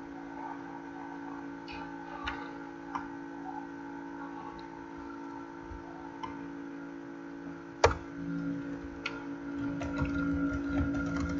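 Computer keyboard keystrokes and clicks over a steady hum: a single sharp click near eight seconds, then a quick run of keystrokes near the end.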